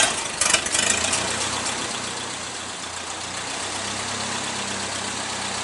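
Antique tractor engine just started, running unevenly with a few loud surges in the first second, then settling into a steady idle.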